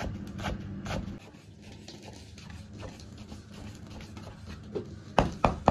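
Cleaver slicing fermented Napa cabbage (suan cai) into shreds on a wooden chopping block: knife strokes about two a second that stop about a second in, then two sharp chops again near the end.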